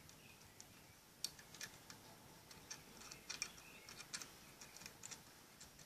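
Small plastic universal cell phone battery charger being handled: a run of faint, irregular small clicks and ticks from its plastic case and contact parts, from about a second in until near the end.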